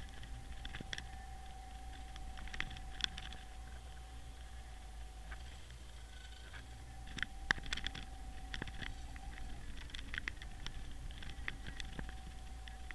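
Underwater camera's microphone in lake water picking up scattered irregular clicks and taps over a low steady rumble, with a thin steady whine that drops out briefly after about nine and a half seconds.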